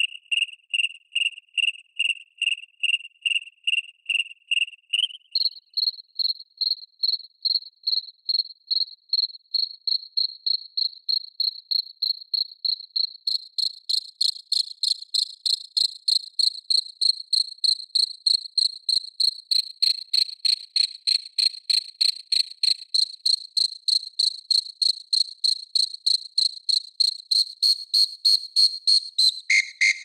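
Synthesized cricket chirp from a hybrid FM, ring-modulation and wavetable Absynth patch, repeating at about three chirps a second. About five seconds in the pitch jumps up, and later extra higher tones join from the raspy FM body oscillator as the macro controls are changed, making the chirps brighter.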